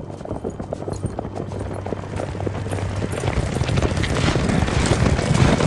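A horse's hooves clip-clopping at a walk, a steady run of sharp knocks that grows louder toward the end.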